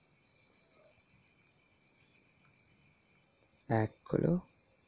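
Steady high-pitched chorus of insects. A brief spoken sound cuts in once, a little before the end.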